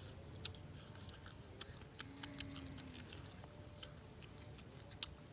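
Scattered sharp clicks and ticks as fingers pick through scorpions in a coconut-shell bowl, the loudest about half a second in and again near the end.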